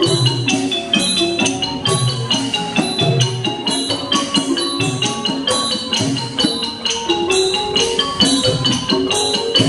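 Thai piphat ensemble playing dance music: quick, continuous mallet notes on the ranat (wooden xylophone) and other tuned percussion over low drum strokes about once a second.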